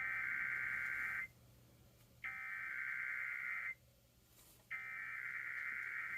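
Emergency Alert System SAME header: three bursts of digital data tones, each about a second and a half long with about a second between them, the coded header that opens an EAS test message.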